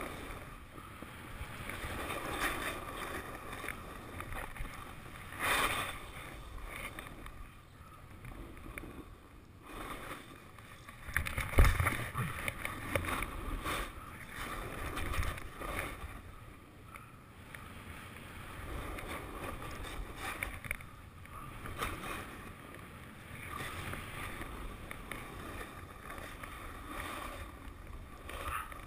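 Skis hissing and scraping over spring snow while skiing down, heard through a GoPro Hero 2, with a sharp thump about twelve seconds in.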